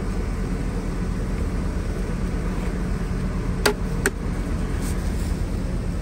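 Steady low rumble of a combine's engine running, with two sharp knocks about half a second apart a little past the middle.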